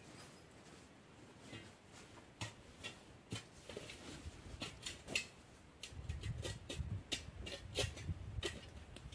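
Scattered small clicks, taps and rustles of hands handling things, coming more often in the second half. A low rumble joins about six seconds in.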